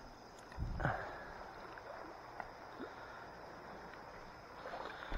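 Steady low rush of flowing river water, with a muffled bump about a second in and a few faint clicks.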